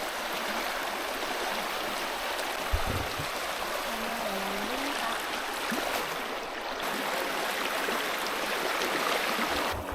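Steady rush of a fast-flowing river current, with a single soft thump about three seconds in.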